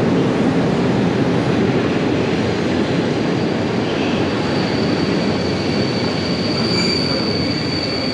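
Passenger train pulling into the station platform: a steady rumble of the carriages rolling past, with a high, steady squeal from the wheels or brakes starting about three seconds in.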